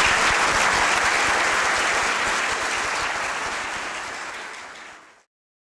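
Audience applauding, the clapping slowly fading and then cutting off to silence about five seconds in.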